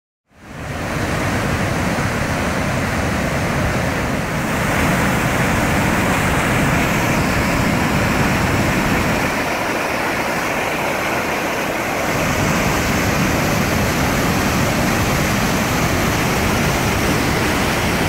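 Steady, loud rush of a waterfall crashing into a rock gorge, cutting in abruptly just after the start.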